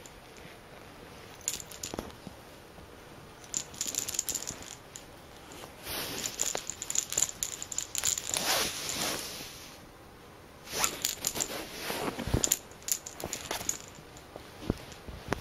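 A cat playing with a furry lure dragged on a wand toy's string over carpet: irregular bursts of scuffling, scratchy rustling as it grabs and wrestles the toy, with a few sharp clicks.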